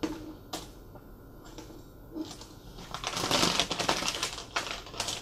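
A small diecast model car clicks down onto a cutting mat, then paper crinkles and rustles for a couple of seconds, loudest about three seconds in, as the next car is handled out of its wrapping.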